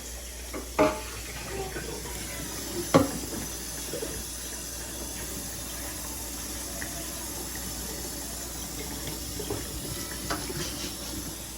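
Kitchen faucet running into the sink while dishes are washed: a steady rush of water with a few short, sharp knocks, the loudest about three seconds in.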